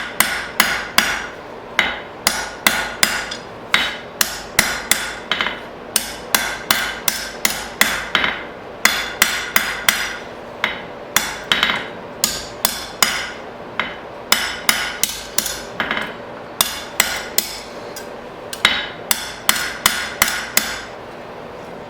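Blacksmith's hand hammer striking hot square steel bar stock on an anvil, in runs of quick blows, about three a second, with short pauses between runs, stopping shortly before the end.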